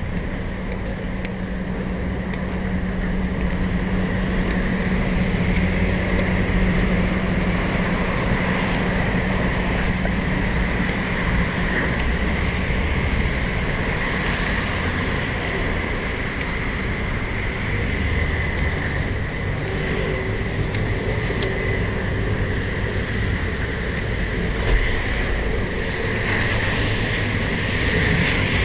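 City street traffic noise: a steady wash of cars and buses on wet streets, with a low steady hum through roughly the first third.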